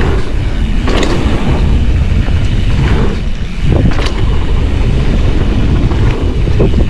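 Wind rushing over a riding mountain bike's camera microphone, over the rumble and rattle of the bike rolling fast down a dirt trail, with sharp knocks about one and four seconds in.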